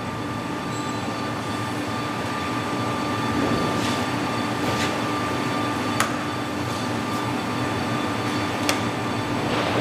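1967 Blanchard 32D-60 vertical rotary surface grinder running: a steady machine hum with a couple of steady tones in it, growing slowly louder over the first few seconds after it is switched on. Two sharp clicks, about six and nine seconds in.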